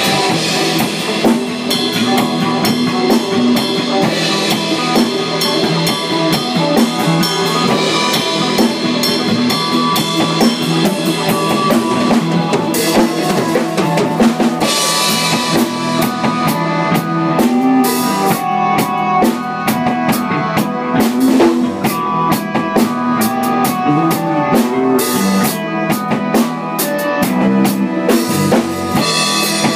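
A three-piece band jamming live: a drum kit with kick and snare playing steadily, under sustained pitched instruments.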